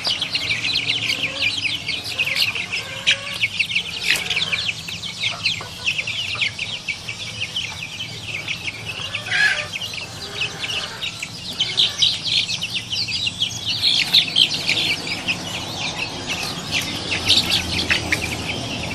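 Chickens clucking, over a continuous chatter of many short, high chirps.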